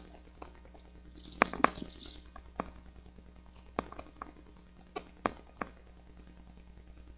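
Pentel Side FX 0.5 mm mechanical pencil writing on paper: a scatter of faint sharp taps and clicks at uneven intervals, with a brief scratch of lead on paper about a second and a half in.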